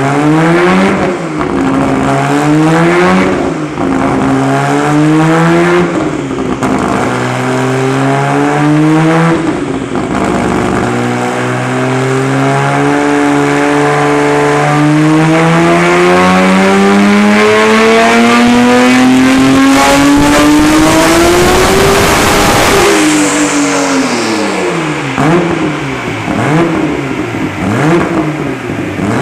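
Nissan GT-R engine run at full throttle on a chassis dynamometer, pulling up through the gears: the pitch climbs and drops at four quick shifts, then climbs in one long pull of about twelve seconds before the throttle closes. Near the end the engine is revved in short, quick blips.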